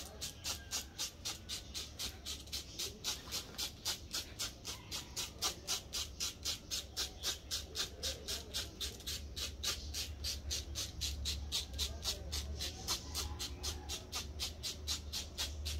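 A small mesh strainer being tapped with a finger to sift cinnamon, giving a steady run of light, even taps about four or five a second.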